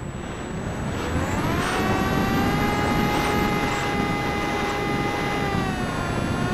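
Parkzone Icon A5 RC plane's electric motor and pusher propeller whining, heard from a camera on the plane itself, with wind rushing over the microphone. The pitch climbs back up during the first couple of seconds as the throttle is opened again, holds steady, then dips briefly near the end and comes back up.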